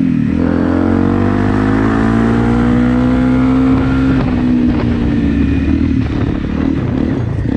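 Single-cylinder four-stroke Honda motorcycle engine accelerating, its pitch rising steadily for about four seconds. It then drops as the throttle eases off, and the engine runs on lower and more unevenly.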